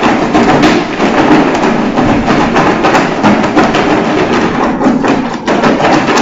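A box of folded paper lots being shaken hard to mix them before the next draw: a dense, continuous rattle and clatter of the slips against the box.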